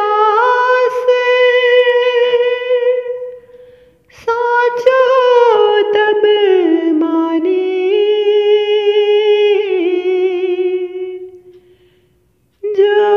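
A woman singing a devotional bhajan unaccompanied, drawing out long, wavering notes with no clear words. She breaks briefly about four seconds in, sings a second long phrase that fades out, and starts a new phrase near the end.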